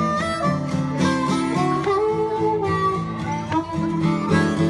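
Acoustic guitar and a blues harmonica played through a handheld microphone, the harmonica holding long, bending notes over the guitar's steady strummed rhythm.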